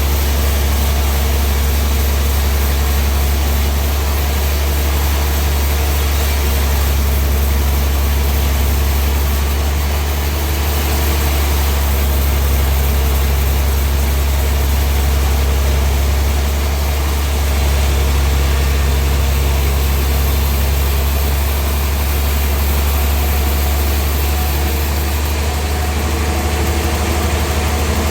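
Sawmill machinery running with a steady low drone.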